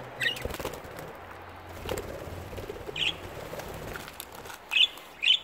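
Budgerigars giving short, high chirps, spaced out at first and then two close together near the end.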